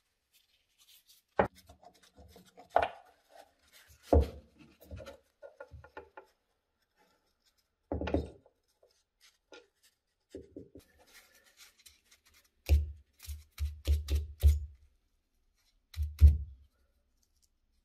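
Cast-metal K-Jetronic fuel distributor housing knocked against a wooden workbench to work a small piston out of its bore. Irregular sharp knocks come first, then a quick run of heavier, deeper thumps in the second half and two more near the end, with light clicks of small metal parts in between.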